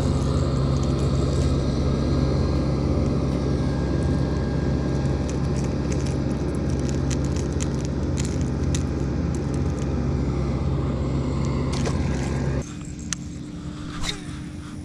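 Engine of nearby grounds-maintenance machinery running steadily with a constant low hum, stopping abruptly near the end.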